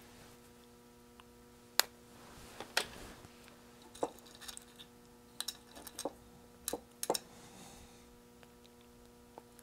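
Light, scattered clicks and taps of small parts and tools being handled on a workbench, about a dozen spread irregularly, over a faint steady hum.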